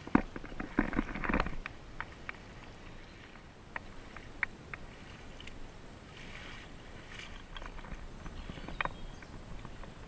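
Footsteps through a shallow, rocky stream: scattered clicks and knocks of shoes on stones, with light splashing in the water and a cluster of louder knocks and splashes about a second in.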